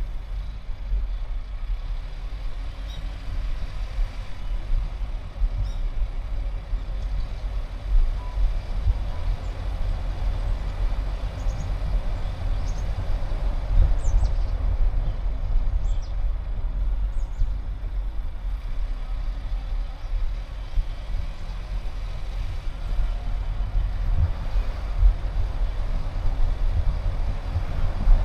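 Steady low rumble of road and wind noise from a car being driven, with a few faint short high chirps in the middle.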